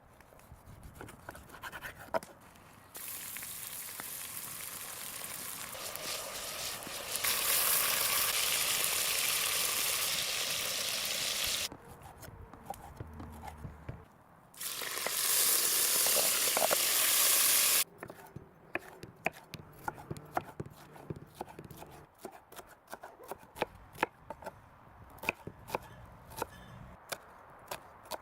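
Food sizzling hard in a hot cast iron pot in two loud spells that start and stop abruptly, then a knife chopping on a cutting board in a run of sharp, uneven knocks.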